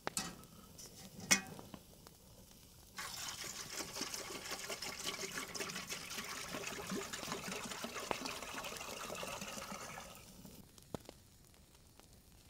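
Water coming to the boil in a kettle over a wood campfire: a steady watery hissing and bubbling that starts abruptly about three seconds in and fades out about ten seconds in. Sharp crackles of burning wood come before and after it.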